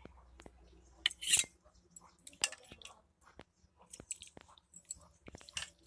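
Ladle scooping chicken curry out of a metal kadai and serving it into metal plates: scattered clinks and scrapes of the ladle against metal, with wet squelches of the gravy, the loudest about a second in.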